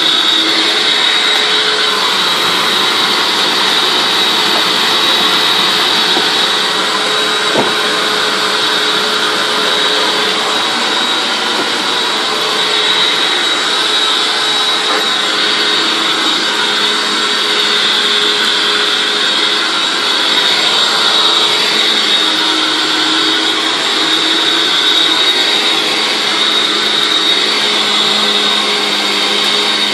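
Hoover WindTunnel Anniversary Edition self-propelled upright vacuum cleaner running steadily, a high whine over the rush of air.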